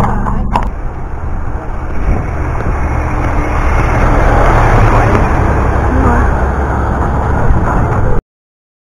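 A tipper lorry passing the horse and rider on the road: steady engine and tyre noise that builds and stays heavy, then cuts off suddenly a little after eight seconds in.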